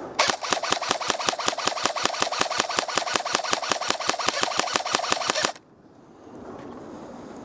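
Airsoft electric gun (AEG) firing one long full-auto burst for about five seconds: the gearbox motor whines under a fast, even rattle of shots, then the burst cuts off suddenly.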